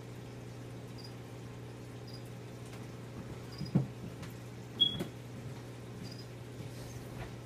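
Steady low hum of reef aquarium equipment, with a faint high chirp repeating about once a second. Two short knocks, about a second apart near the middle, are the loudest sounds.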